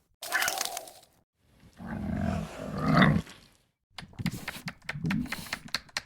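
Animal-like roaring and growling in three bursts of a second or more each, the last one broken up by sharp clicks.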